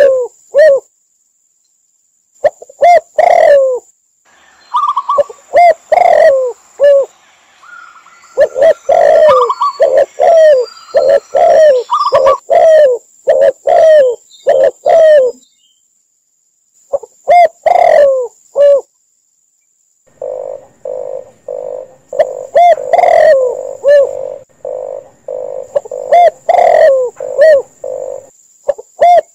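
Mixed recorded calls of spotted doves, red collared doves and zebra doves: repeated low coos in bursts with short pauses between, some higher cooing notes among them, and a rapid run of short coo notes about twenty seconds in.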